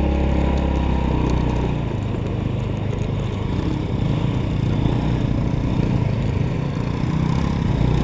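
Honda scooter's engine running as it is ridden over a rough dirt track, a steady drone. The deep low rumble drops back about two seconds in and picks up again near the end.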